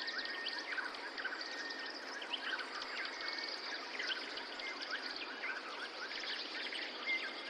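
Night-time forest ambience: a dense chorus of many short, overlapping chirps and calls from small creatures, with a steady high-pitched whine that stops about two seconds in.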